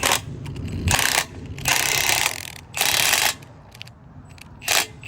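Socket ratchet wrench clicking in short bursts about once a second as it turns the forcing screw of a bushing puller, drawing a seized bushing out of an excavator.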